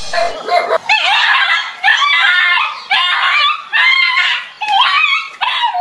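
A dog yelping and whining in repeated high-pitched cries, loud and bending in pitch, as a fake tiger is pressed onto it.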